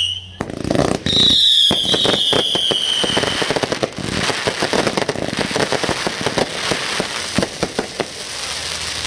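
Consumer fireworks going off: a couple of launch thumps, then a whistle that slides down in pitch for about two seconds, followed by dense crackling pops that run on to the end.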